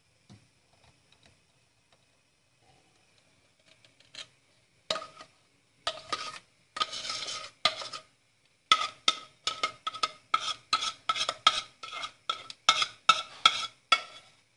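Metal spoon scraping thick milk kissel out of a steel saucepan. A few separate scrapes start about five seconds in, then a quick, even run of about three scrapes a second, each with a slight metallic ring.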